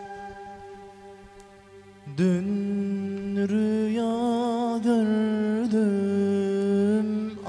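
A held end-blown ney flute note fading over a low sustained accompaniment. About two seconds in, a male voice enters singing a Turkish ilahi (Islamic hymn) in long held notes with strong vibrato and melismatic turns.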